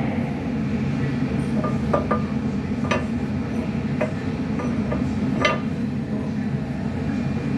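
A handful of light metallic clinks, each ringing briefly, over a steady low hum; the loudest clink comes about five and a half seconds in.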